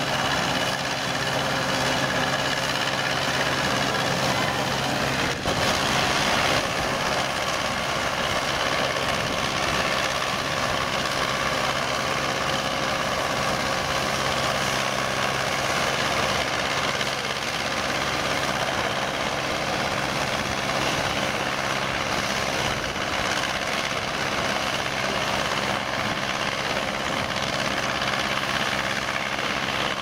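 Vintage combine harvester running steadily while cutting and threshing standing grain, its engine and threshing machinery working under load.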